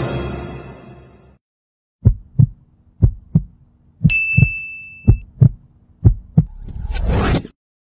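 Suspense music fading out, then a heartbeat sound effect: low double thumps, lub-dub, about once a second, five times. A high ding sounds about halfway through, and a rising whoosh closes it near the end.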